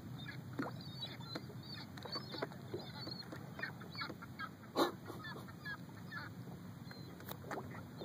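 Many short calls of distant waterbirds overlapping, over a low steady rumble. A single sharp knock about five seconds in is the loudest sound.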